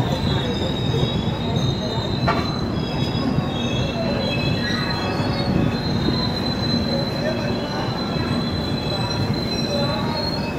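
Moving passenger train: its wheels squeal against the rails in steady high tones over the coach's rumble, with a single clank about two seconds in.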